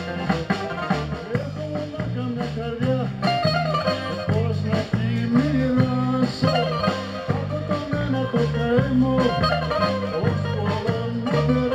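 Live Greek band music with no singing: a bouzouki picks out a fast melody over a walking electric bass line and a steady beat.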